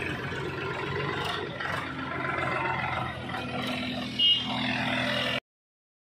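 A tractor engine runs steadily as the tractor hauls a trailer loaded with soil. A short, loud, high-pitched beep comes about four seconds in, and the sound cuts off suddenly near the end.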